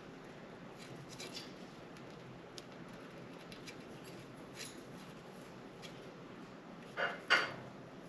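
Budgies in their cage making faint, scattered clicks and taps, then two short, louder sounds about a third of a second apart near the end.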